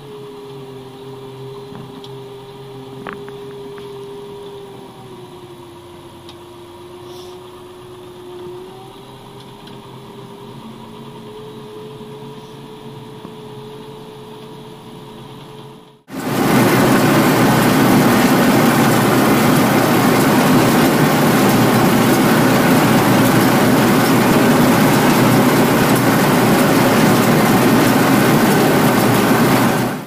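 John Deere tractor engine running steadily under load, heard from inside the cab, its pitch sagging for a few seconds and then recovering. Just past halfway it gives way to a much louder, even rushing noise with no clear engine note.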